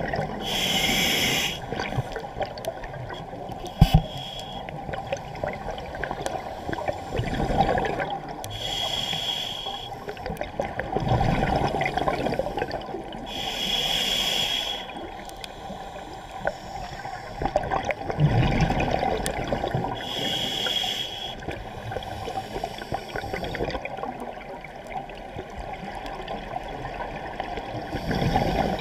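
Scuba diver breathing through a regulator underwater: a hissing inhalation through the demand valve every few seconds, alternating with the bubbling rumble of exhaled air.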